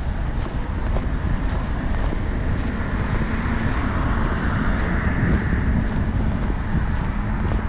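Wind rumbling on backpack-mounted lavalier microphones during a walk, with outdoor traffic noise that swells in the middle, like a car passing.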